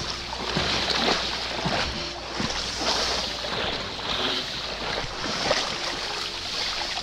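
Irregular splashing and rustling as a stick is jabbed repeatedly into a grassy stream bank and the water beneath it, driving fish into a scoop net, over the rush of the stream.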